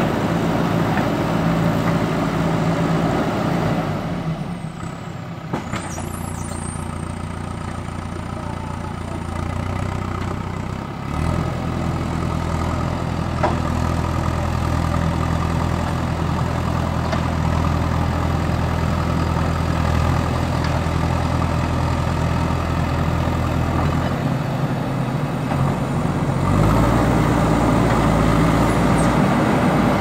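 JCB backhoe loader's diesel engine running steadily while the machine works. The engine note drops about four seconds in, picks up again around eleven seconds with a brief knock, and gets louder near the end.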